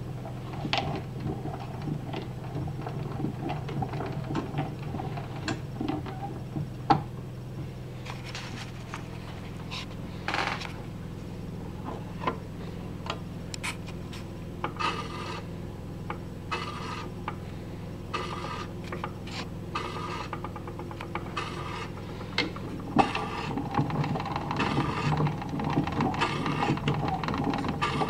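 A Victor Victrola VV-405 being wound by its side crank, with clicking and rubbing from the winding mechanism. From about ten seconds in, the record turns under the reproducer and a scraping swish repeats about every second and a half.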